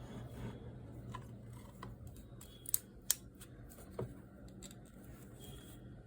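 Small objects being handled, with light ticks and rustles and three sharp clicks in the middle.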